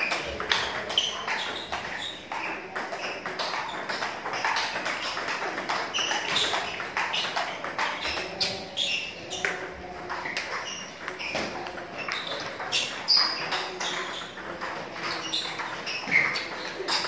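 Table tennis balls clicking off bats and tables in several overlapping rallies: a dense, irregular stream of sharp ticks.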